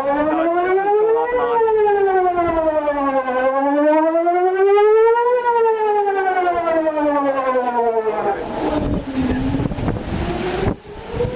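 Outdoor tornado warning siren sounding a slow wail: its pitch rises for about two seconds, then falls for about two, over and over. About eight seconds in it fades behind wind noise on the microphone, then begins to rise again faintly.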